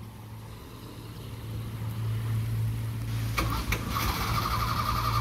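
A vehicle motor drones steadily, growing louder about two seconds in. Near the end come two sharp clicks and a fast, rattling buzz.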